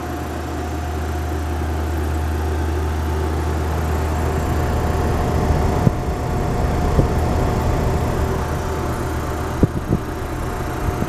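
Refrigeration condensing unit of a Cavalier Coca-Cola cooler running, with its condenser fan spinning: a steady low electrical hum with a faint thin tone over it, and a few light clicks near the end.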